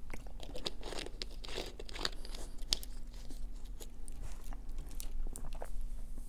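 A run of close-miked crisp clicks and crackles, densest in the first three seconds and sparser after: eating-show mouth sounds mixed with the crinkle of a plastic water bottle being handled and set down.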